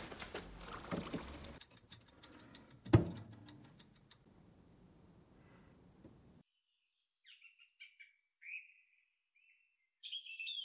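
Red-hot steel knife blade plunged into quench oil, a sudden sizzling hiss for about a second and a half, followed by clicks and a single loud knock about three seconds in. Later, after silence, several short bird chirps.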